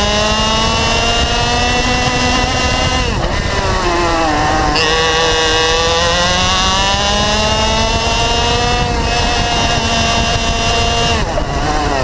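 Racing kart's two-stroke engine at full throttle, heard onboard, its pitch climbing steadily as the kart gathers speed. The revs fall sharply about three seconds in and again near the end as the driver lifts and brakes for corners, then climb again.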